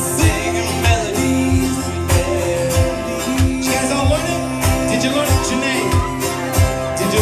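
A live band playing a song: guitars over a steady low beat about every half-second, with a man singing into a microphone.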